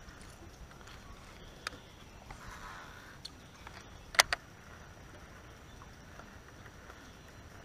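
Light clicks and small handling noises from a baitcasting rod and reel being worked by hand, with a sharp double click about four seconds in, over a quiet outdoor background.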